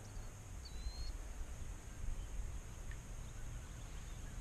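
Quiet open-air ambience on calm water: a steady low rumble and faint hiss, with one short, high bird chirp about a second in.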